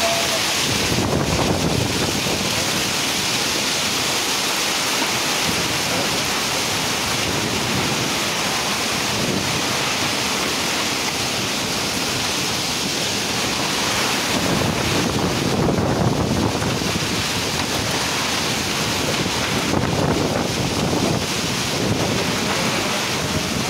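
Heavy monsoon downpour driven by strong wind: a steady rushing hiss of rain, with several stronger gusts buffeting the microphone in low rumbling surges.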